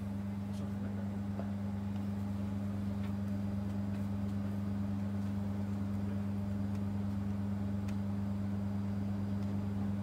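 Steady low hum with two even tones, with a few faint ticks.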